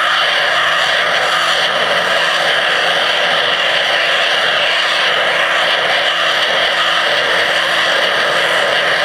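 Pressure-washer jet spraying underwater, a loud, steady hiss with a faint constant hum beneath it.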